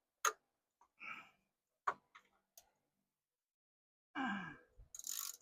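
A few separate sharp metallic clicks from a socket wrench being worked on the drain plug, then a brief voice sound and a short hiss near the end.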